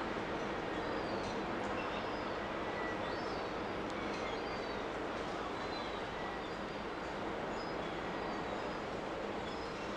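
Steady low drone of the container ship's and tug's engines, with short high bird chirps scattered over it.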